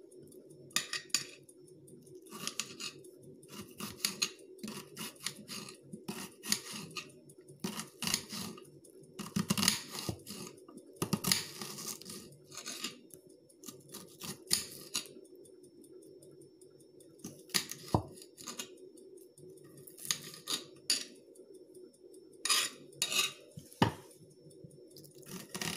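Kitchen knife dicing an onion on a cutting board: irregular strokes of the blade tapping the board, coming in bunches with short pauses between. A steady low hum runs underneath.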